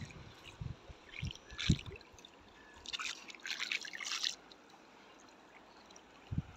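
Water trickling and splashing off a wet cast net as it is hauled in and gathered, in several short bursts in the first half. A few low thumps come in the first two seconds.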